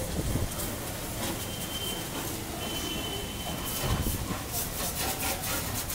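Pressure-washer spray hissing against a lifted car's underbody, over the steady drone of the washing machinery, with a faint thin whistle in places.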